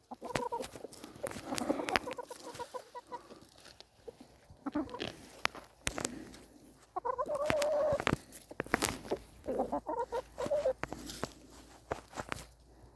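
Chickens clucking close by in a series of short calls, with one longer, louder drawn-out call about seven seconds in. Scattered short knocks are heard between the calls.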